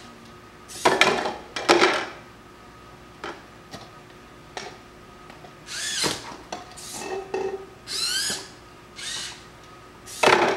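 Hobby servo motors of a cardboard robot arm whining in short sweeps that rise in pitch as the arm replays its recorded moves. Plastic cups clatter into a plastic tub about a second in and again near the end.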